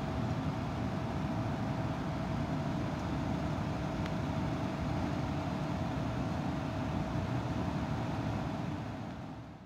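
Steady machinery noise with a constant hum, fading out near the end.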